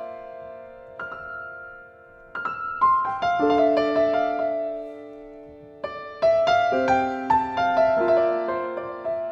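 Slow, gentle solo piano music: short phrases of struck notes and chords left to ring and fade, a new phrase beginning about two seconds in and again about six seconds in.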